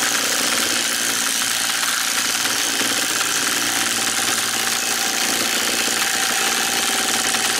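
Cordless impact driver hammering continuously on a socket, running down a VW Beetle axle nut to draw the hub, spacer and bearings together; it stops abruptly near the end.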